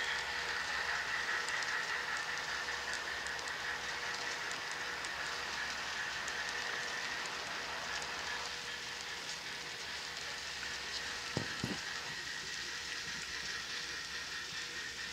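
N-scale model freight train rolling past on the track: a steady hiss with scattered small clicks from the cars, easing slightly as the train goes by. Two short low knocks come about eleven seconds in.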